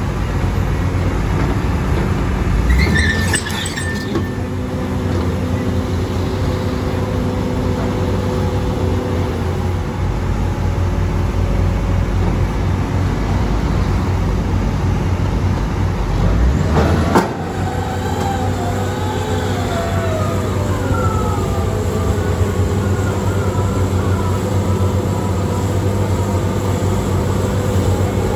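Heavy diesel excavator running steadily at a construction site, with two louder spells, one a few seconds in and one about halfway, each cutting off suddenly, in keeping with a load being dumped into a truck. A wavering high squeal follows in the second half.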